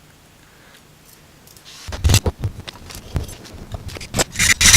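Faint hum, then from about two seconds in a run of clicks and knocks from things being handled, with scraping between them. Near the end comes a loud, harsh scrape.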